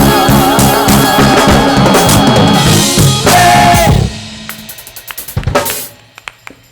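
Gospel church band with drum kit playing, ending on a held chord about four seconds in; a few scattered drum and cymbal hits follow as the music dies away.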